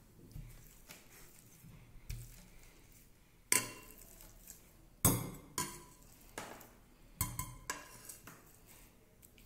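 Metal potato masher being pushed down into boiled potato in a glass bowl, its plate knocking and clinking against the glass. A few soft thuds come first; sharp clinks follow from about a third of the way in, the loudest near the middle.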